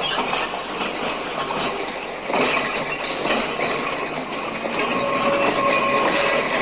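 Old electric tram train starting off and rolling slowly, its wheels and running gear rattling and clicking over the track. It grows louder about two seconds in, and a faint steady whine joins near the end.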